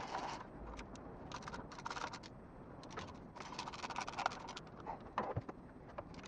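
Socket ratchet clicking in quick runs, with metal scraping and tapping of the tool against the exhaust manifold as its bolts are run down by hand.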